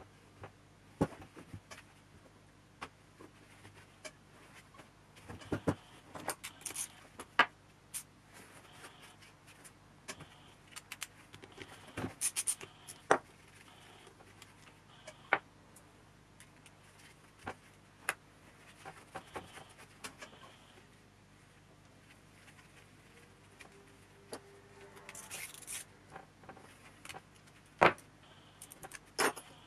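Hydraulic boot-lid pump unit being reassembled by hand: scattered clicks, taps and scrapes of small metal parts and a hand tool against the pump body, irregular and spread throughout.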